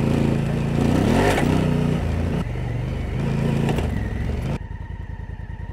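Honda Africa Twin's parallel-twin engine pulling the bike uphill on a dirt track, its pitch rising and falling with throttle and gear changes. About four and a half seconds in it drops suddenly to a quieter, even pulsing idle.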